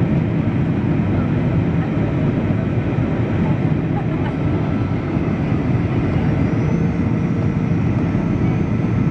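Cabin noise inside a Boeing 737-800 on approach, heard from a seat over the wing: the CFM56-7B turbofans and airflow make a loud, steady rushing drone. A faint thin whine joins about seven seconds in.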